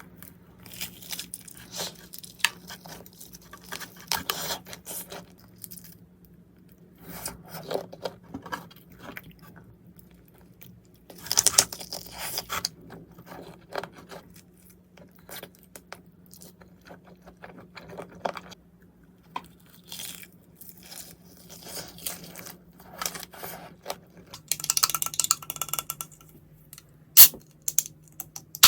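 Close-miked crinkling, tearing and scraping in irregular bursts, like food packaging and containers being handled and opened.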